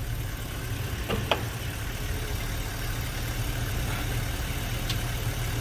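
A 2006 GMC Savana's 4.8-litre V8 idling steadily.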